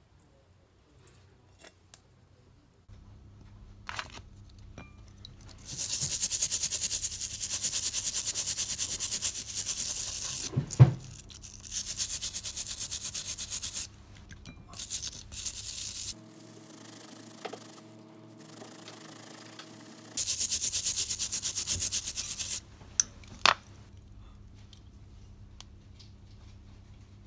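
A hand brush scrubbing a small fired copper-clay pendant in spells of brisk strokes a few seconds long, with a sharp knock about eleven seconds in and a few clicks near the end, over a low hum.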